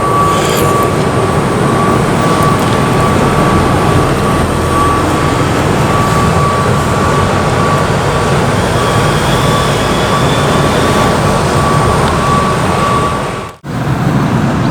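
Loud, steady street traffic noise with a thin continuous high whine over it. It cuts off abruptly shortly before the end, then picks up again.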